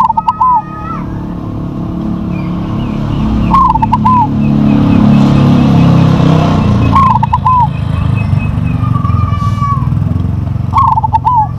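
Crossbred zebra dove (perkutut) cooing its short phrase of a rising note and quick stuttering notes four times, a few seconds apart. A low rumble swells up in the middle and then eases off under the calls.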